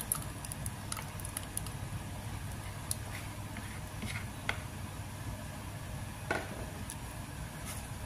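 Quiet low steady hum with a few soft, scattered clicks and taps, the clearest about six seconds in, from a metal spoon and stainless mesh sieve as thin crepe batter is poured and strained into a bowl.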